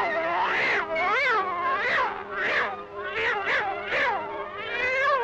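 Cartoon cat yowling as its tail is yanked and swung: a string of about eight cries, each rising and falling in pitch.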